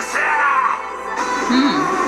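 Music playing, with a gliding sung or synth-like melody line over held tones.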